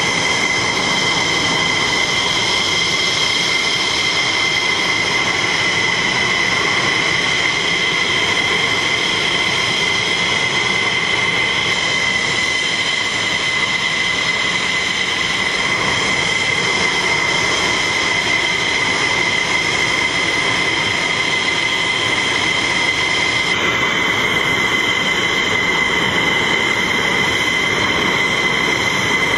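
Jet engines idling on a fighter flight line: a steady high-pitched whine over a loud, even rush.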